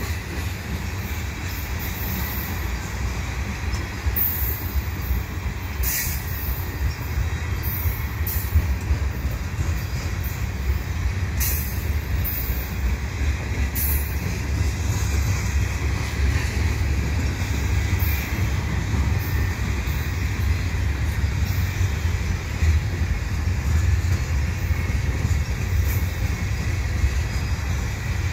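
Freight cars (covered hoppers, then steel coil cars) rolling past on steel rails with a steady low rumble. Brief high wheel squeals come now and then, most in the first half.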